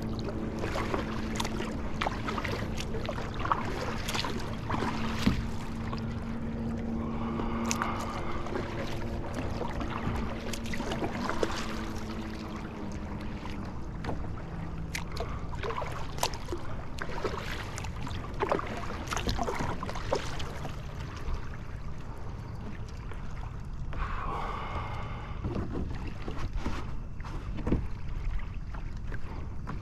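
Water lapping against a fishing kayak's hull, with scattered light knocks and clicks. A steady low hum runs through roughly the first twelve seconds, then fades out.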